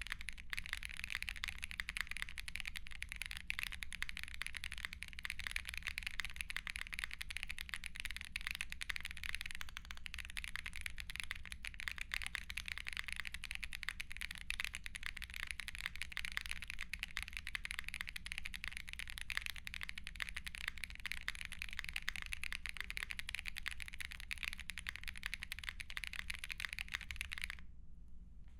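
Continuous fast typing on a Lucky65 aluminium 65% mechanical keyboard fitted with lubed and filmed Holy Boba tactile switches and GMK keycaps. It breaks off briefly near the end.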